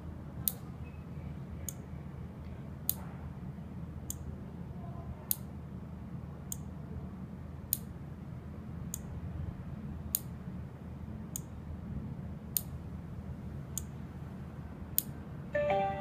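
Quiet, evenly spaced sharp ticks, about one every 1.2 seconds, over a steady low hum. A short pitched tone sounds just before the end.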